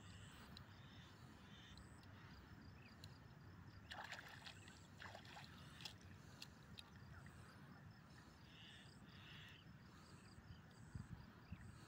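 Near silence: a faint low rumble, with a few faint water splashes about four to five seconds in and faint high chirps now and then.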